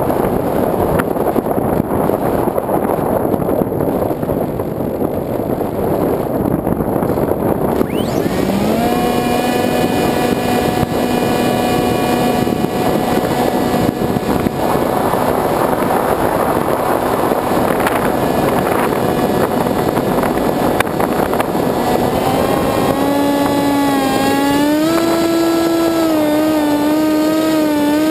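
Onboard sound of a Sky Surfer RC glider in flight: air rushing over the camera, then about eight seconds in the electric motor and propeller come in with a steady whine that rises in pitch and wavers near the end as the motor speeds up.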